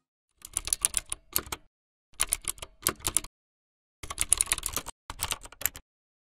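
Rapid typing key clicks, a text-typing sound effect, in four short runs separated by brief silences.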